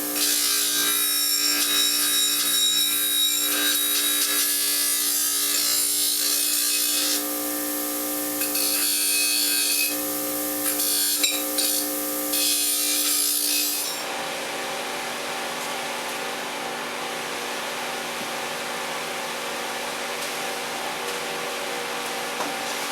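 Steel part being deburred against a running power tool: a harsh rasping grind that eases off briefly a couple of times, then stops about fourteen seconds in, leaving the machine running steadily and quieter.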